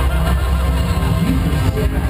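Loud live concert music from a large PA system, heard from within the audience, with strong steady bass.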